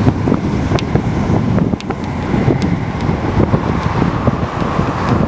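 Steady rushing noise, heaviest in the low end and gusting, with wind buffeting the microphone and a few sharp clicks.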